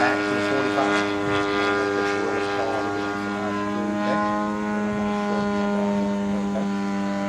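Radio-controlled model airplane's engine and propeller droning steadily in flight, the pitch shifting a little partway through.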